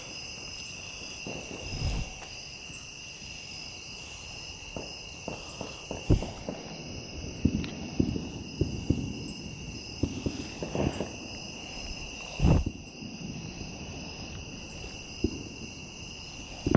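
Irregular footsteps and thumps on dirt ground, over a steady high-pitched chorus of night insects.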